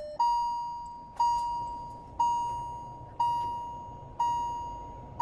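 Kia Stonic's dashboard warning chime sounding with the ignition on: a single mid-pitched ding about once a second, each fading before the next.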